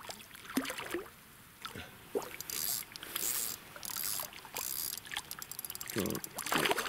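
Hooked mirror carp splashing at the surface as it is drawn over the landing net. There are several bursts of splashing in the middle.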